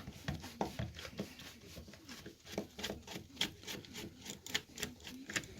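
Screwdriver working out the screws that hold the rear end cap of an electric lawnmower motor: a run of irregular light clicks and scrapes, several a second, denser from about two seconds in.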